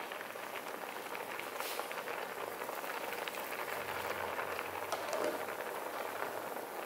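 Milk kheer bubbling steadily in a steel pan, a continuous crackle of small bursting bubbles.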